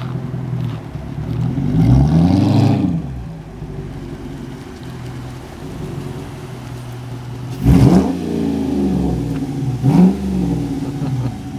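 2006 Dodge Charger R/T's 5.7-litre Hemi V8 through 2.5-inch Powerstick chambered mufflers and an H-pipe, rumbling at low speed. It revs up and back down about two seconds in, then gives two short, sharp throttle blips about two seconds apart later on.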